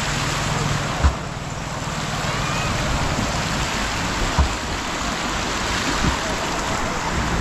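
Floodwater rushing across a road as a steady, even noise, with a few short low thumps and a low motor hum in the first couple of seconds.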